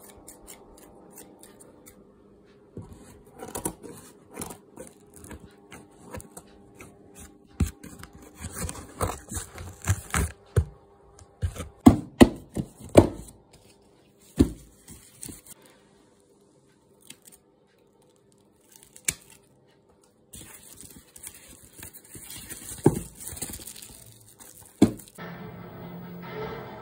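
Scissors snipping and slicing through packing tape on a cardboard box, with sharp cuts and clicks, then tape and cardboard being torn and crinkled open. Music begins near the end.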